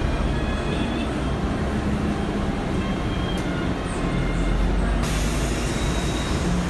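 Steady low rumble of a Scania K-310 bus's engine and running gear, heard from inside the cabin. About five seconds in, a steady hiss joins across the upper range.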